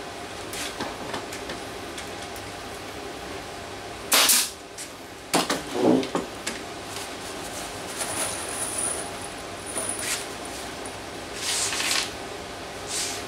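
Pneumatic brad nailer firing into plywood: three sharp shots, about 4, 5.5 and 6 seconds in, with quieter handling knocks and rustles around them.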